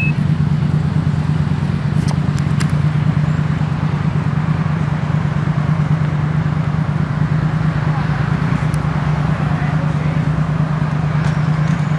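Steady road traffic noise from cars passing, with a constant low hum underneath.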